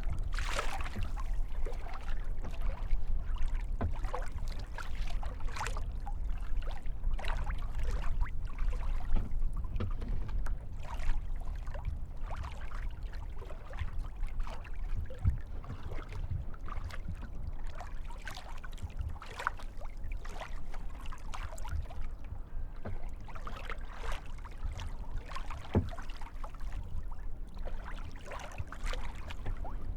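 Kayak paddling on a lake: irregular splashes of the paddle blades and water lapping at the hull, over a steady low rumble.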